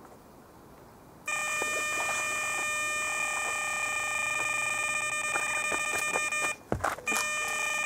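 Electronic carp bite alarm on the rod pod sounding one continuous high tone, the sign of a run: a fish taking line. It starts about a second in, breaks off briefly with a low thump near the end, then sounds again.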